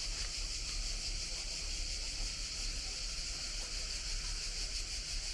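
Cicadas chorusing, a steady high-pitched buzz, over a faint low rumble.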